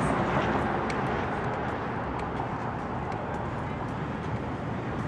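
Steady city street noise: traffic running at a distance as an even wash of sound, with a few faint ticks.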